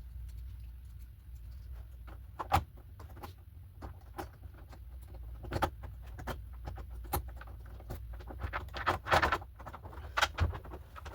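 Irregular metallic clicks and clinks of keys and small lock parts being handled during the rekeying of a commercial lever-handle lock, over a low steady hum.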